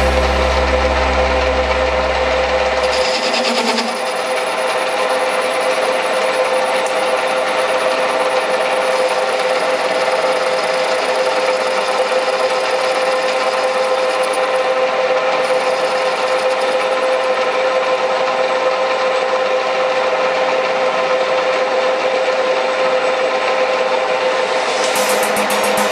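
Metal lathe running with a steady whine while the cutting tool scrapes the spinning metal workpiece. A low hum dies away about three seconds in.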